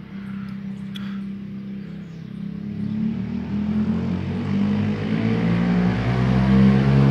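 Single-cylinder engine of an approaching motorbike, running steadily at first, then getting louder and rising in pitch as it accelerates in the second half.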